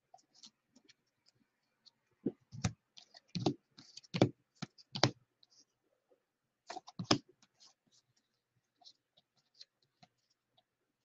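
Baseball cards being flipped through by hand, each card slid from the front of the stack to the back: a string of short clicks and snaps of card stock, louder and closer together in the middle stretch and sparse near the end.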